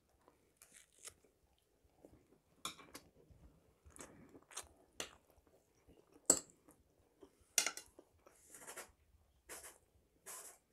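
Close-miked chewing with wet mouth smacks and soft crunches, scattered through the quiet, with a couple of sharper clicks a little after six and seven and a half seconds in.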